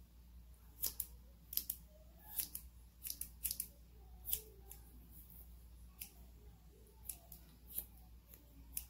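Small scissors snipping a dog's paw fur: short crisp snips about once a second, some in quick pairs.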